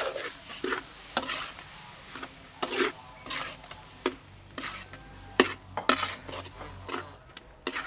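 Metal spatula scraping and tossing rice, river prawns and shredded carrot around a wide metal pan while stir-frying: a run of irregular scrapes and clinks, about two a second.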